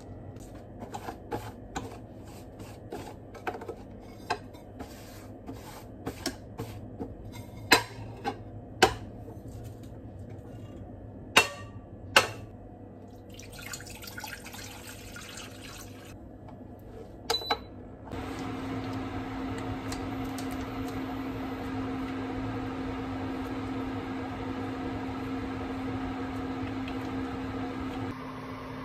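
Plastic noodle packet crinkling, with knocks and taps of things handled on a table, then water poured into a saucepan. Two short beeps follow as an induction cooktop is switched on, and it runs with a steady electrical hum.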